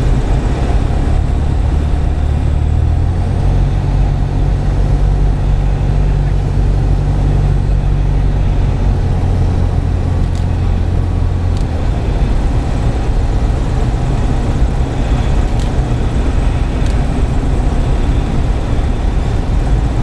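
Single-engine light aircraft's piston engine and propeller running, heard inside the cockpit as a steady loud drone with wind noise. The low drone changes its note about three seconds in and again around twelve seconds in.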